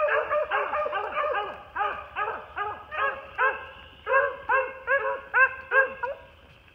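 Beagles baying on a swamp rabbit's trail: quick, repeated yelping barks, about three a second. Several dogs overlap at first, then the barks come more evenly spaced.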